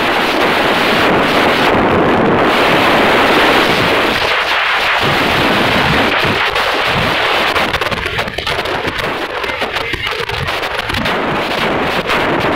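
Loud wind buffeting the microphone of a phone carried on a moving motorcycle, a steady rough rush with crackling gusts, easing a little and turning choppier about two-thirds of the way through.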